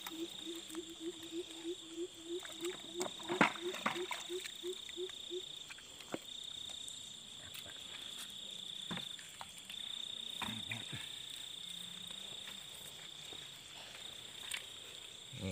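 Night chorus: a cricket trills steadily at a high pitch throughout. For the first five seconds or so a frog calls in a quick run of evenly spaced low pulses, about three or four a second, then stops. A few short knocks and rustles of handling are heard now and then.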